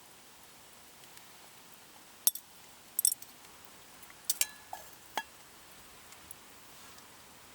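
A few sharp clinks and taps of small metal or glass cookware being handled, in scattered single knocks and a quick cluster about three seconds in; one clink, near the middle, rings briefly.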